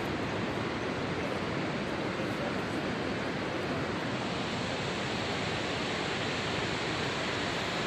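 Steady rushing of a waterfall, the Cachoeira da Fumacinha, with an even, unbroken roar of falling water.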